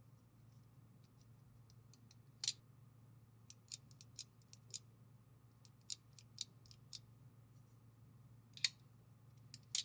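Crossbar-lock (rail lock) folding knife with an Omega-spring-loaded lock bar being worked by hand: sharp, separate metallic clicks as the lock bar snaps and the blade swings. There are about a dozen clicks, irregularly spaced, with the loudest about two and a half seconds in and again near the end.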